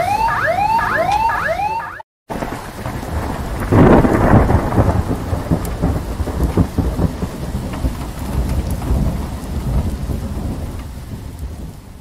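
Rain with a rolling clap of thunder, loudest about four seconds in and fading out toward the end. It is preceded by about two seconds of a fast repeating electronic siren yelp, about three sweeps a second, that cuts off abruptly.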